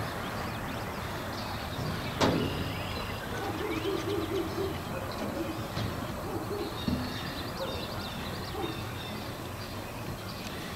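Small birds chirping over steady open-air ambience, with one sharp crack about two seconds in.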